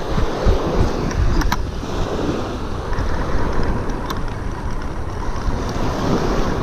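Wind buffeting the microphone over the rush of breaking surf, with a couple of faint clicks.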